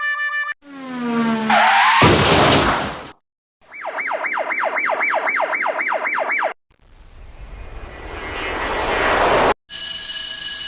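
A string of separate sound effects. A short pitched glide ends in a noisy burst. Next is a siren yelp, wailing up and down about three times a second for about three seconds, then a rising whoosh that cuts off suddenly. Near the end come steady ringing tones.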